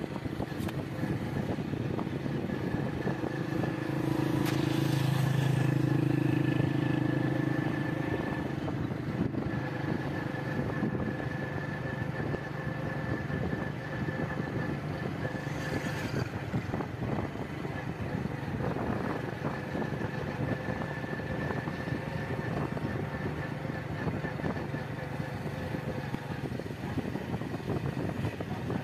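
Motorbike engine running steadily while riding, heard from on the bike; the engine grows louder between about four and seven seconds in.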